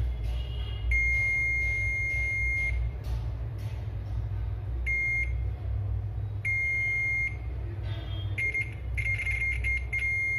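Digital multimeter's continuity beeper sounding as the probe touches points on a laptop motherboard, a beep that marks a low-resistance path to ground. A long, steady, high beep comes about a second in, then shorter and medium beeps, and near the end a run of broken, stuttering beeps as the probe contact flickers.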